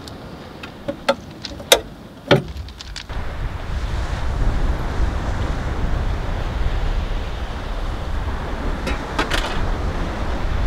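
A few sharp clicks and a knock, then from about three seconds in a steady rush of wind buffeting the microphone over surf breaking on the shore, with a couple more clicks near the end.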